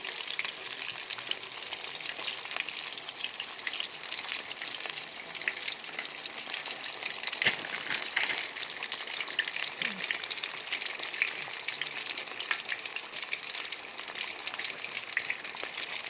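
Coated chicken leg pieces deep-frying in hot oil: a steady sizzle full of small crackles, with one sharper pop about seven and a half seconds in.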